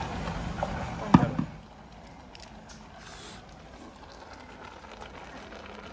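Handling sounds as ground onion-garlic paste is tipped from a small plastic container into a pot of saag: a sharp knock about a second in, then faint taps over a quiet background.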